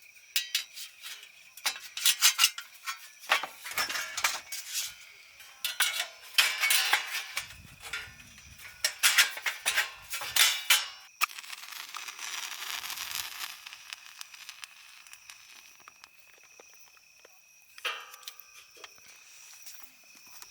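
Camp cookware and utensils being handled, clinking and clattering in quick irregular knocks for about ten seconds, then a short hiss.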